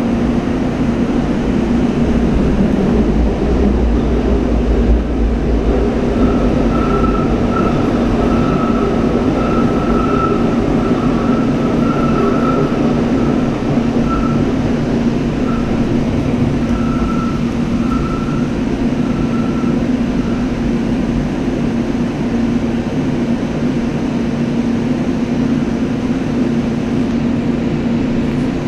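Siemens SD-160 light rail car running through a tunnel, heard from inside the front cab: a steady rumble of wheels on rails with a low hum. Through the middle stretch a faint high squeal comes and goes as the train rounds a curve.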